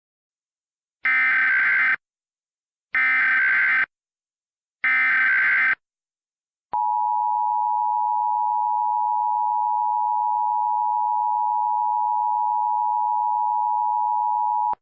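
Emergency Alert System SAME header: three short bursts of warbling digital data tones, each just under a second long and about two seconds apart. About a second later comes the long steady attention tone, held for about eight seconds, which signals that an emergency message follows.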